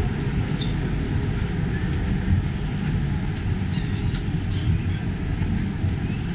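Steady low rumble of city traffic, with a few short high-pitched rattles about four seconds in.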